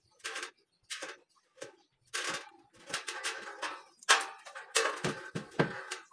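Thin light-steel frame profiles clattering and scraping as they are handled, in a string of short irregular bursts with some metallic ringing, busiest in the second half.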